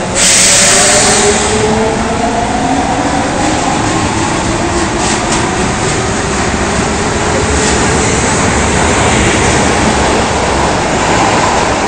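Osaka Municipal Subway 22 series electric train pulling out of the station and running past. A loud rush of air and wheel noise sets in suddenly at the start. A motor whine rises in pitch over the first few seconds, then a steady rumble continues.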